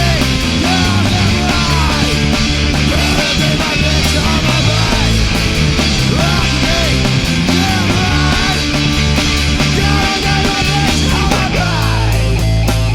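Loud rock music with singing over a steady band backing. Near the end the singing stops and held chords ring on.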